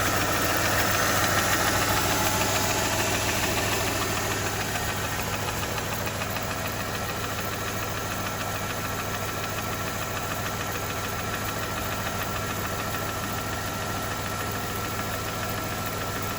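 Mercedes-Benz M272 3.0 L V6 running with a steady, rapid knock, on an engine built after the balance-shaft fix. The sound eases slightly in level about four seconds in.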